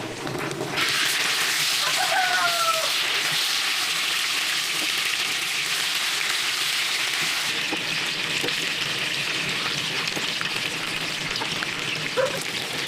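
A steady, even hiss starts abruptly about a second in, with chickens calling briefly among it: one short call about two seconds in and a cluck near the end.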